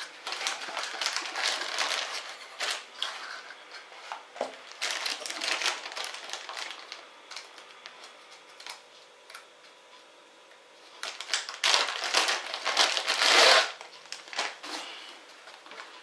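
Clear plastic packaging bag crinkling and rustling as a pouch is handled and pulled out of it, in irregular bursts with a quieter stretch in the middle; the loudest crinkling comes about 11 to 14 seconds in.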